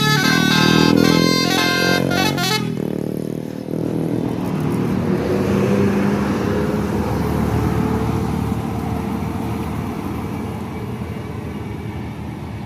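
Tour bus's multi-tone telolet air horn playing a quick stepping melody, which cuts off under three seconds in. Then the bus's engine and tyres run past, slowly fading.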